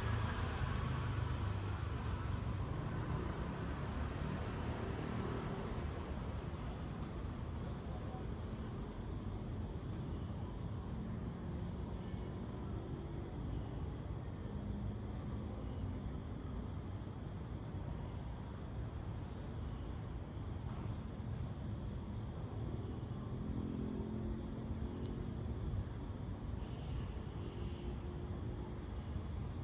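Crickets chirring in a steady, high-pitched, unbroken trill over a low, even rumble of street ambience. A passing vehicle fades away in the first couple of seconds.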